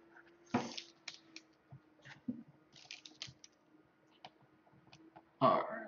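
Irregular computer keyboard clicks and taps, as in keyboard shortcuts during digital painting, over a faint steady hum. A louder brief noise comes near the end.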